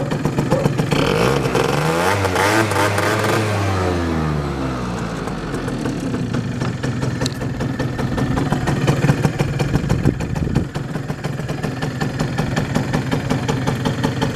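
Generic Spin GE50 50cc scooter engine revved once, its pitch rising for a second or two and falling back, then idling steadily with an even, rapid putter.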